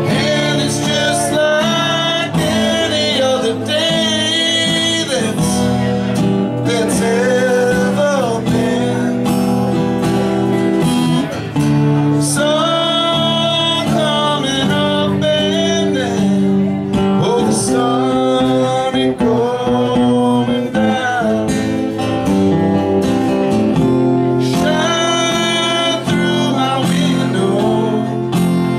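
Live acoustic music: a strummed acoustic guitar with a man singing into a microphone, playing steadily without a break.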